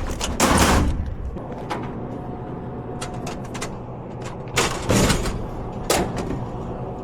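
Loud clunks and knocks from a vending machine being worked on during a restock: a heavy bang about half a second in, then a pair of knocks near five seconds and another near six.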